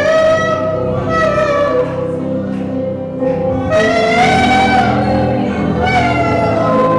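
Gospel worship music: singing in long held notes that glide in pitch, over a steady instrumental accompaniment.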